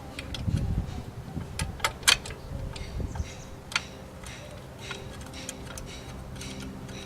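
Irregular metallic clicks and light knocks of bolts and the steel alternator bracket being handled as the bolts are threaded in by hand. The sharpest click comes about two seconds in.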